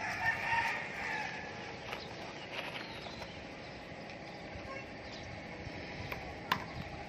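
A rooster crows once, a call lasting about a second, followed by a steady outdoor background and two sharp knocks near the end.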